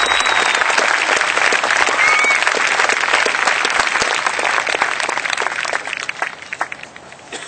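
A large crowd applauding, thinning out to a few scattered claps near the end.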